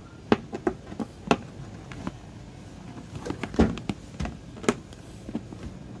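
Fingers handling a cardboard product box, picking and tapping at its flap to open it: irregular sharp taps and clicks of cardboard.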